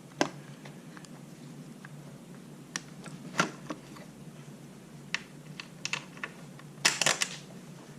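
Small hardware and tool clicks and taps, scattered and irregular, as a bracket screw is worked into place by hand, with a quick cluster of clicks about seven seconds in.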